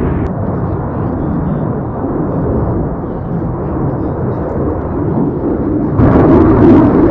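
F-35 Lightning II jet in flight, its F135 turbofan heard as a steady deep rumble that turns suddenly louder and fuller about six seconds in.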